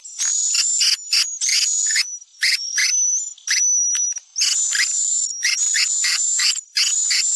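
Swiftlet lure call (suara panggil walet): recorded swiftlet twittering in rapid, high, buzzy chirps and trills, repeated in quick bursts over a thin high whistle. The bursts break up briefly about halfway through.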